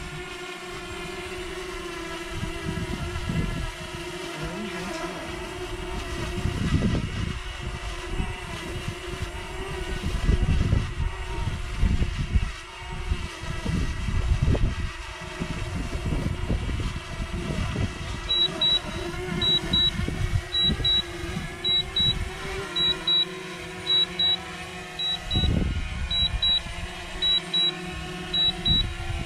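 DJI Mavic Mini quadcopter hovering with its propellers making a steady buzzing hum, with wind gusting on the microphone. From about two-thirds of the way in, short high beeps repeat in pairs about once a second as the drone comes down to land.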